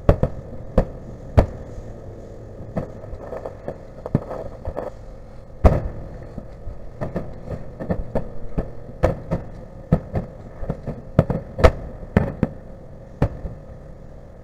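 Aerial fireworks shells bursting: many sharp bangs in quick, irregular succession, some much louder than others.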